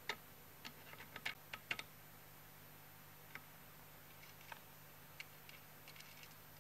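Faint, scattered small clicks and taps of small metal parts being handled against a metal chassis: fitting a potentiometer and its mounting nut and washer by hand. A quick run of clicks in the first two seconds, then single ticks every second or so.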